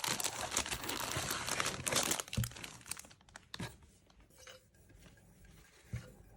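Plastic packaging crinkling and tearing as it is pulled open, dense for about three seconds, then a few soft knocks of the item being handled.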